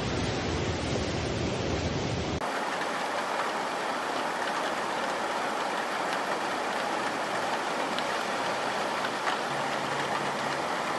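Floodwater rushing through a street, a steady noise of running water; about two seconds in it cuts to heavy rain pouring down, an even hiss without low rumble.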